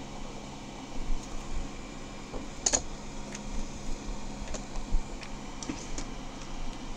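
Scattered light clicks and taps from handling a gel pen and a plastic-wrapped sketchbook, over a steady low room hum and hiss.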